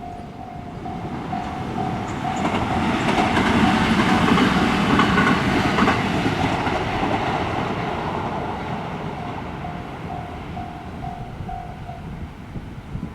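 A train passing over a level crossing, its wheels clattering on the rail joints, loudest about four to six seconds in and then fading away. Over it the crossing's warning bell rings in a steady, even on-off ding, and it stops shortly before the end.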